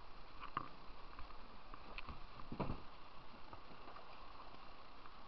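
Water lapping and swishing around a kayak on a river, with a few short splashes or knocks. The loudest is a thump about two and a half seconds in.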